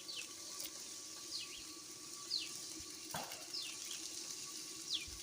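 A bird calling repeatedly with short, quickly falling high notes about once a second, over a steady hiss of running water.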